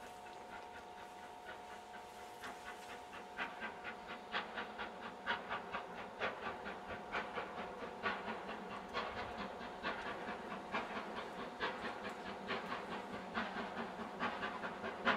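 Steam locomotive working a train away, its exhaust beats chuffing in an even rhythm that grows louder as it approaches.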